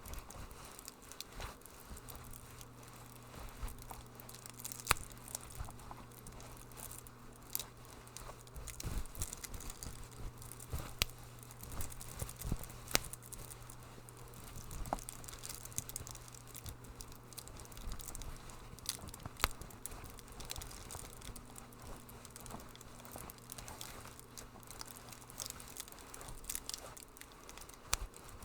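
Wood fire in a fireplace crackling, with irregular sharp pops, a few louder snaps among them, over a faint low steady hum.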